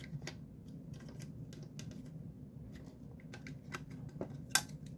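Scattered small clicks and taps of parts being handled and worked on by hand, with a sharper click near the end, over a faint steady low hum.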